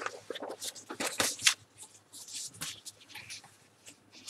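Paper pages of an exam booklet being flipped over by hand: crisp rustles and crackles, strongest in the first second and a half, then fainter handling of the paper as the page settles.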